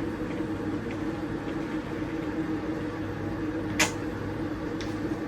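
Steady mechanical hum with a few constant low tones, broken by one sharp click nearly four seconds in.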